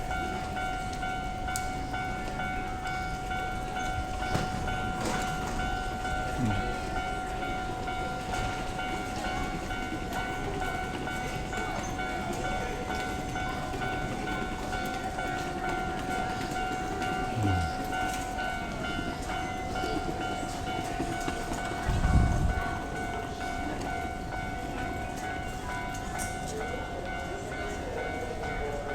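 Japanese railway level-crossing warning bell ringing steadily at the Keio Line crossing, over the noise of trains passing. A low thump about three-quarters of the way through is the loudest moment.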